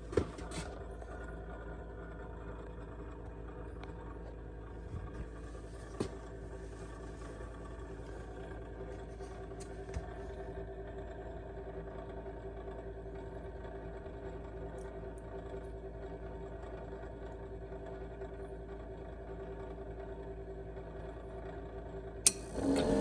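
Old Lennox gas furnace's draft inducer motor running steadily with a hum, started on test after a universal pressure switch replaced the stuck original, with a few faint clicks. A sharp click near the end, as the pressure switch closes.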